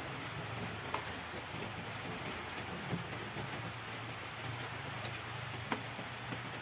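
A ladle knocking lightly against the side of an aluminium wok a few times while stirring salmon-head sinigang broth, over a steady hiss.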